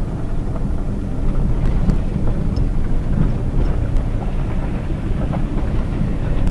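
Cabin noise of a Hyundai Tucson JM with its 2.0 petrol engine driving on an unpaved dirt road: a steady, loud low rumble from the engine, tyres and suspension, with a few scattered small clicks and knocks.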